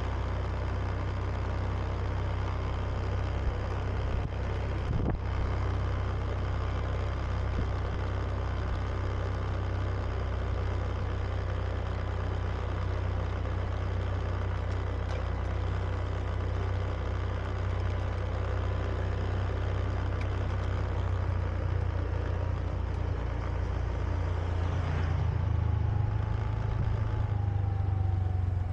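Honda Beat scooter's engine running steadily under way, with road and wind noise. A whine falls in pitch over the last few seconds.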